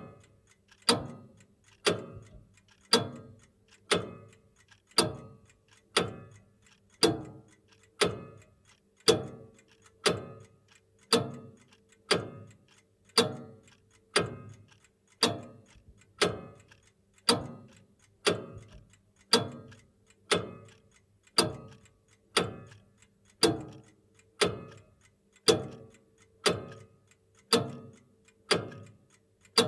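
Old grandfather clock ticking steadily, about one tick a second, each tick a sharp click with a short ringing tail.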